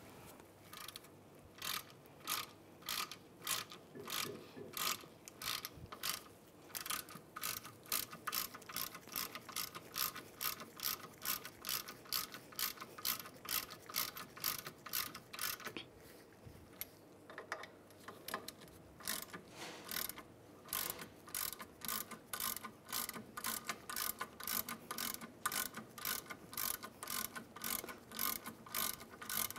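Hand ratchet with a socket turning a brake caliper slide bolt, clicking in quick, repeated strokes. The strokes pause briefly about two-thirds of the way through, then resume.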